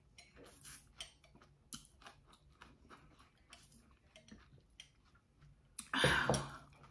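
Close-miked mouth sounds of sipping through a straw and swallowing: a run of faint, small wet clicks. About six seconds in comes a much louder breathy burst as the drinking stops.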